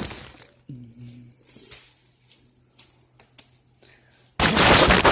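Handling noises: scattered light clicks and knocks, a brief voice sound about a second in, then a loud rush of noise lasting under a second near the end, which starts and stops abruptly. A steady low electrical hum runs underneath.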